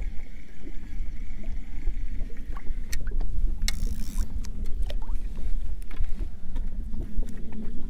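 Wind rumbling on the microphone and small waves slapping against the side of an inflatable boat, with a few sharp clicks from the spinning rod and reel being handled.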